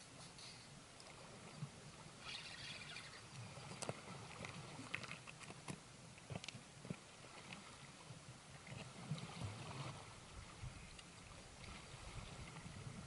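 Sea water lapping and sloshing at a rocky shore, with scattered small clicks and knocks of handling close by.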